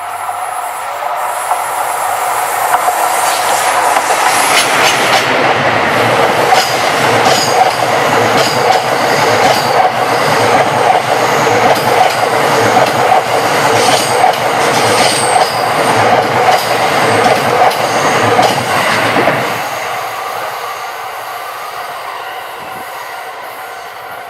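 Cassiopeia sleeper train passing close by, its wheels clattering over the rail joints with some squeal. It builds over the first few seconds, stays loud with many sharp clicks, then drops away about 19 seconds in and fades. A steady level-crossing warning bell rings underneath.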